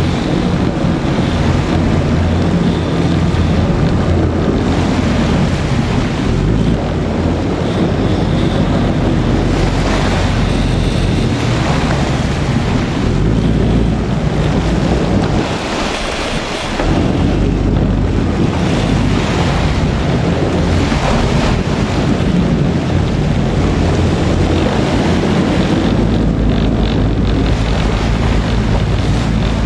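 Wind buffeting the microphone over the steady rush of the sea aboard a boat, a loud continuous rumble that dips briefly a little past halfway.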